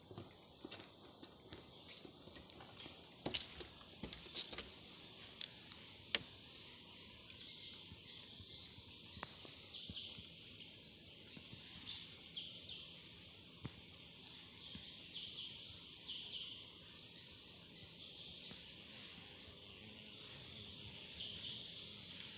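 Insects calling: one steady, high-pitched drone throughout, with softer chirping coming and going over it. A few footsteps knock on the boardwalk planks in the first six seconds or so.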